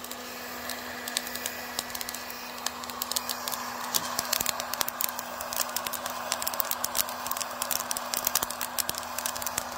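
Coffee beans crackling through second crack in a homemade hot-air roaster: many quick, sharp pops, coming thicker after about three seconds, over the steady blowing of the roaster's fan.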